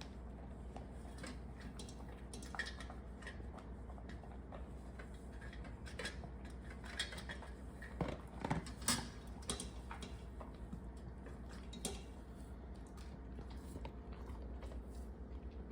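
A Labradoodle eating, with scattered small clicks and clinks. A louder cluster of them comes about eight to nine seconds in.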